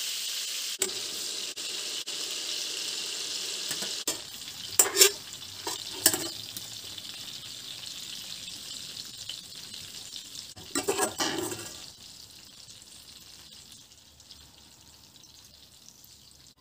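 Pork liver pieces sizzling in hot frying oil in a stainless steel pan. The sizzle fades away as the pan is emptied, with a few knocks and scrapes of a metal spatula against the pan about five, six and eleven seconds in.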